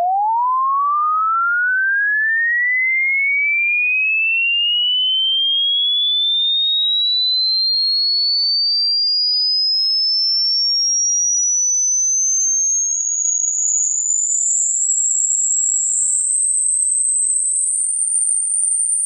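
A single pure sine test tone from a hearing test, sweeping steadily upward in pitch from a middle tone to a very high, thin whistle. Past about 13 seconds it climbs in small steps and wavers slightly in loudness.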